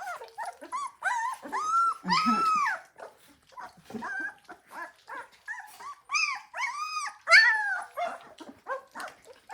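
Three-week-old North American Mastiff puppies whining and squealing: a quick string of short high-pitched whines, with a few louder, longer ones about two seconds in and again around seven seconds in.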